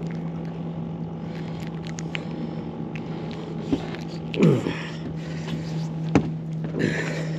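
Steady hum of the boat's motor, with a short falling squeal about halfway through and a sharp click shortly after as the baited rig is handled.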